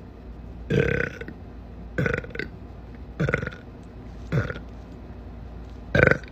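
A person burping five times in quick succession, short loud belches a little over a second apart.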